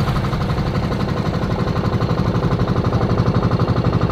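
Banka outrigger boat engine running steadily under way, a loud, fast, even pulsing beat.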